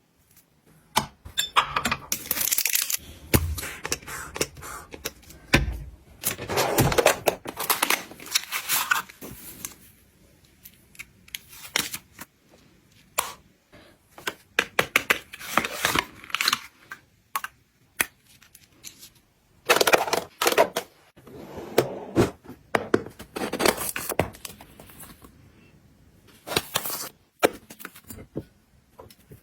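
Close-up handling sounds of restocking: irregular rustling and crinkling of packaging, with sharp clicks and light knocks of containers being handled and set down.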